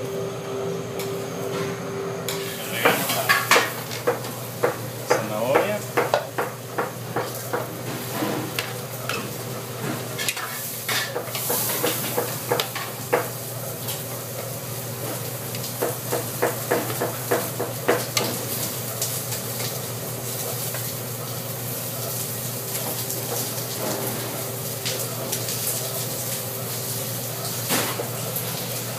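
Vegetables for escabeche (jalapeños, carrots, onion) sizzling in a large aluminium stockpot while a metal ladle stirs them, clanking and scraping against the pot. The clanks come thick and fast until a little past halfway, then it settles to a steadier sizzle with a few knocks. A steady hum runs underneath.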